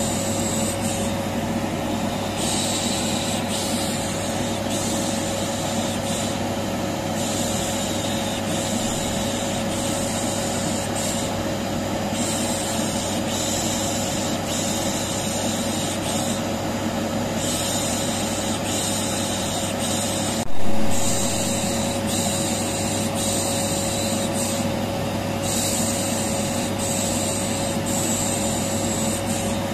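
Vacuum cleaner running with a steady hum, overlaid with long 'shh' shushing sounds that come and go every few seconds with short breaks. A single short knock about twenty seconds in.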